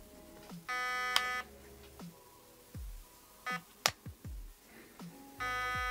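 Airsoft electric gun's electronic trigger unit beeping in programming mode: a long steady beep about a second in and another near the end, with shorter beeps and a few sharp clicks between. The beeps mark which setting is selected.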